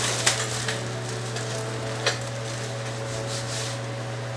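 Clear plastic wrapping crinkling and rustling as it is handled and pulled off a gaming chair seat cushion, with a sharp crackle about two seconds in, over a steady low hum.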